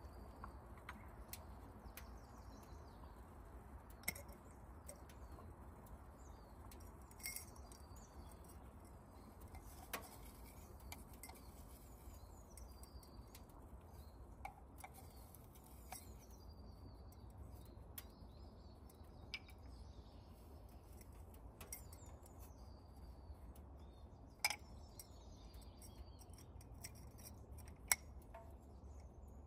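Faint birdsong over a quiet outdoor background, with sharp clicks or knocks every few seconds, the loudest two near the end.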